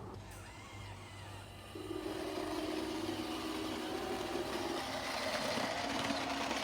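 RC excavator's motor running with a steady whine, growing louder about two seconds in as it takes on work.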